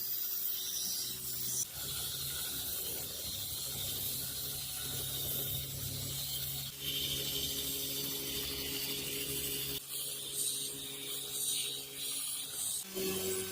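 Workshop tool sounds in several short edited clips: a steady low hum with a high rasping noise above it, changing abruptly about every three to five seconds.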